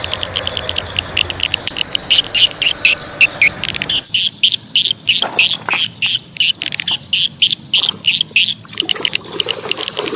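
Water running as a plastic toy truck is washed, cutting off suddenly about four seconds in. Under it and after it comes a fast, steady string of high chirps that lasts throughout.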